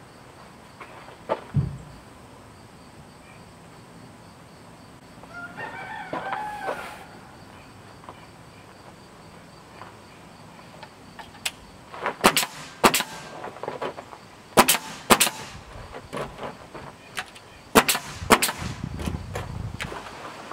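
A rooster crows once, about six seconds in. From about eleven seconds on, a pneumatic nail gun fires about ten sharp shots, mostly in quick pairs, nailing a rough-sawn trim board in place.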